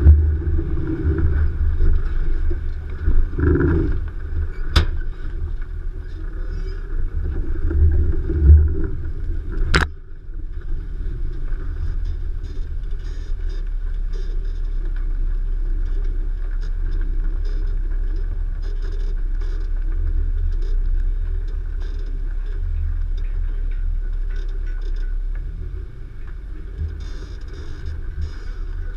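Nissan Xterra Pro-4X's 4.0-litre V6 and drivetrain rumbling while driving off-road, uneven for the first ten seconds and steadier after. Two sharp knocks, about five seconds apart, stand out over the rumble.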